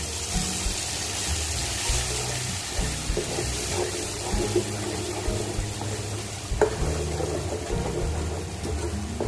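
Wet ground onion-garlic masala paste sizzling in hot oil in a kadhai as a metal ladle stirs it, with one sharp knock of the ladle against the pan about six and a half seconds in.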